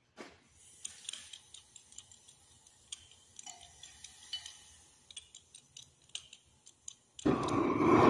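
Light clicks and ticks from handling at a propane tank and its hose. About seven seconds in, a large propane heating torch comes on suddenly with a loud, steady rush of burning gas, heating a big steel gear for a shrink fit.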